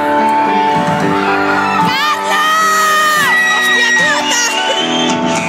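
Pop band music playing loud in a large hall. About two seconds in, a voice rises into a high held note that lasts about two seconds.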